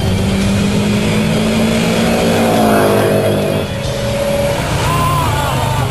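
A drag-racing car's engine accelerating hard, its pitch climbing steadily for about three seconds before it drops off.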